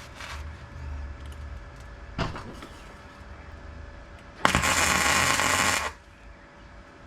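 MIG welder arc crackling in one steady burst of about a second and a half, about four and a half seconds in, laying weld on thin sheet steel. A single sharp knock comes a couple of seconds before it.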